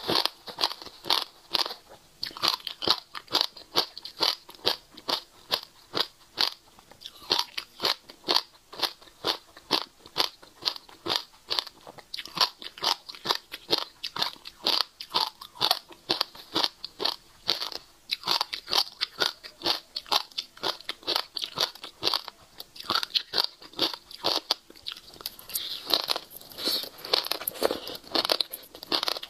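Close-miked chewing of passion fruit seeds: a continuous run of crisp crunches and cracks, several a second.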